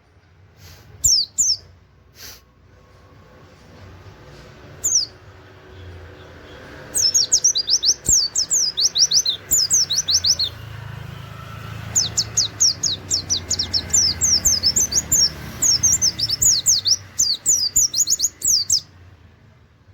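Pleci (white-eye) singing in fast runs of sharp, high, downward-slurred notes, the rapid 'nembak' delivery with canary-like 'wit wit' notes. There are a few short bursts, then one run starting about seven seconds in and a longer one from about twelve seconds.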